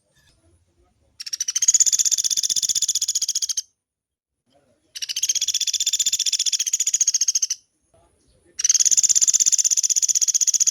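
A pelatuk beras woodpecker giving three long, fast rattling trills, each about two and a half seconds of rapidly repeated high notes, with a second or so of pause between them.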